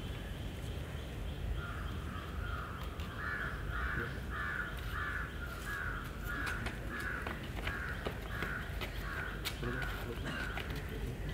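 A crow cawing over and over in an even series, about two caws a second. The calls start a second or two in and stop shortly before the end.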